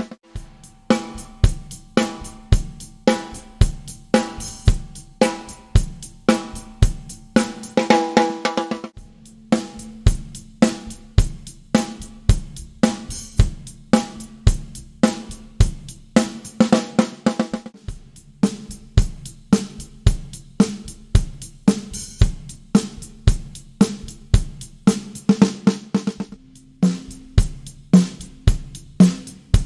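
Drum kit played in a steady groove built around a Tama Artwood snare drum with a coated Evans head, with bass drum, hi-hat and cymbals; the snare rings on after its strokes.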